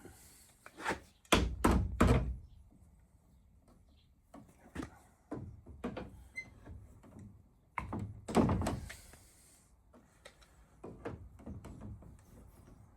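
Irregular knocks and thunks of hands and tools working crimp rings onto PEX plumbing fittings, the loudest clusters about a second in and again about eight seconds in.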